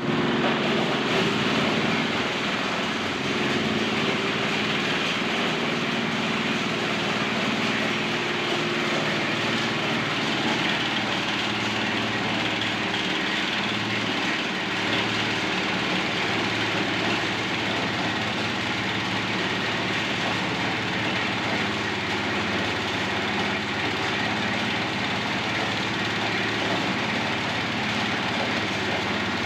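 Engine-driven SM10 corn sheller machine running steadily at a constant speed.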